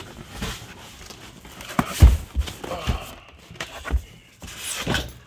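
Cardboard box and packing being handled while a header is unpacked: rustling and scraping with several dull thumps, the loudest about two seconds in.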